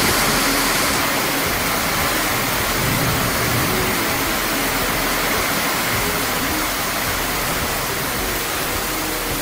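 Very heavy tropical downpour: a loud, steady rush of rain on the paved yard and roofing, with runoff pouring off a roof edge.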